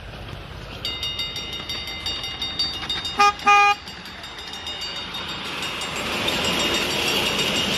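Model train horn giving two short toots, the second a little longer, a little past three seconds in, over a steady high whine with rapid clicking; from about five seconds a noisy rush builds up as a train runs by.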